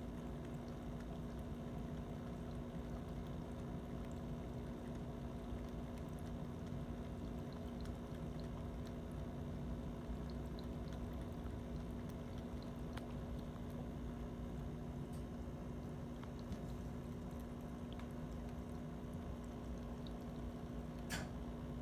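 Whisker City small pet fountain running: its pump gives a steady hum under a continuous trickle of water. A single sharp click sounds near the end.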